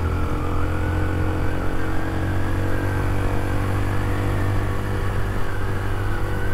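Yamaha 125 motorcycle's single-cylinder four-stroke engine running at a steady speed while being ridden, with a constant low drone.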